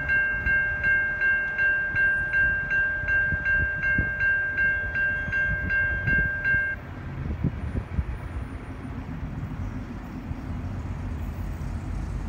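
Railroad grade-crossing bell ringing rapidly, about three strikes a second, then cutting off about seven seconds in as the crossing gate comes down. After that, the low rumble of an approaching diesel train, slowly growing louder.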